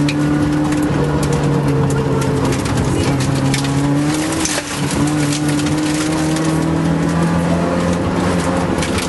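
Toyota AE86 Corolla rally car's engine heard from inside the cabin, running hard at high revs. It briefly eases about four seconds in, climbs steadily in pitch again, and drops near the end as the driver shifts. Gravel clicks and rattles against the car over the top.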